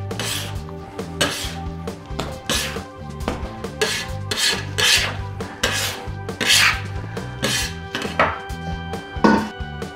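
Metal bench scraper scraping sticky bread dough and flour across a wooden worktop in about a dozen short strokes, roughly one a second, with background music underneath.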